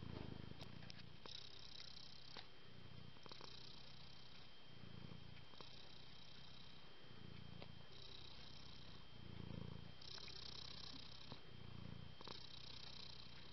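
A tabby cat purring while it dozes, in slow even cycles about every two seconds: a low rumble alternating with a breathy hiss.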